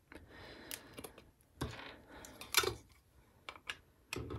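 Needle-nose pliers rocking and pulling 3D-printed plastic support pieces out of a printed frame wall: soft scraping broken by a scatter of small, sharp clicks as the supports come loose, the loudest about two and a half seconds in.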